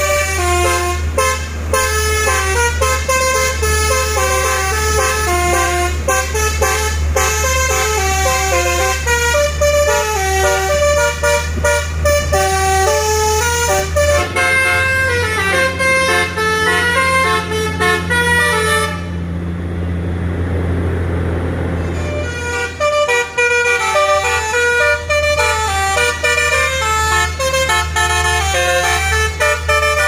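Basuri 'telolet' multi-tone truck horn playing a dangdut-style melody, one note after another, over a steady low drone. The tune breaks off for about three seconds two-thirds of the way through, leaving a rushing noise, then starts again.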